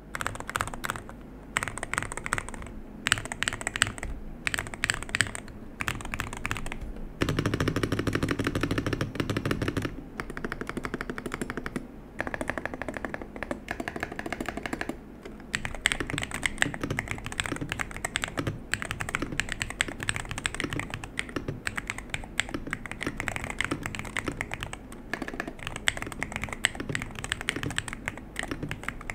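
Typing on an Aula HERO84 HE Hall-effect magnetic-switch keyboard with Black Emperor switches and an FR4 plate: a steady stream of keystrokes with short pauses. A denser, faster run of key presses starts about seven seconds in and lasts about three seconds.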